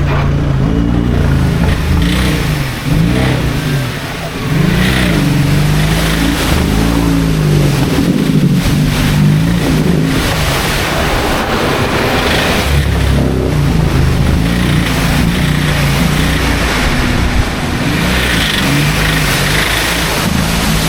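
An off-road 4x4's engine revving hard, its pitch climbing and dropping over and over, with a brief lull about three to four seconds in.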